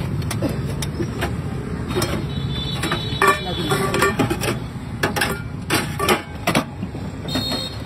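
Stainless steel lids, bowls and ladle clinking and knocking against steel containers: a string of sharp metallic clicks, some ringing briefly, over a steady hum of street traffic.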